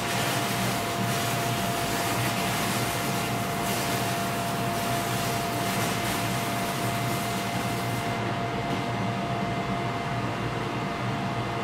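Stick welding arc from a 6011 rod, a steady crackling hiss that cuts off about eight seconds in as the weld ends. A garage exhaust fan runs steadily underneath, with a constant hum and a steady tone.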